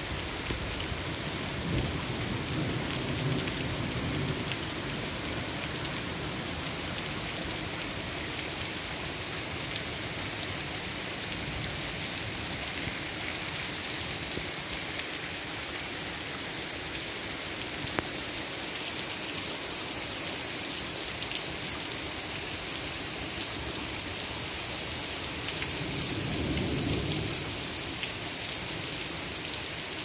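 Heavy rain pouring steadily onto a paved road, with low rumbles of thunder about two seconds in and again near the end.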